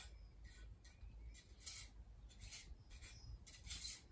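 Faint, short scratchy rubbing strokes repeating about twice a second.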